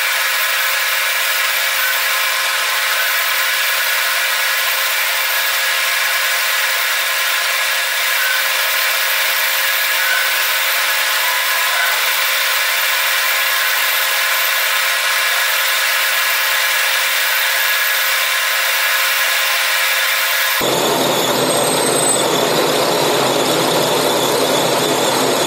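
Manual lathe turning a brass bar, the spindle running steadily while the tool cuts: a steady hissing whir with little low end. About twenty seconds in, the sound changes and lower sounds come in.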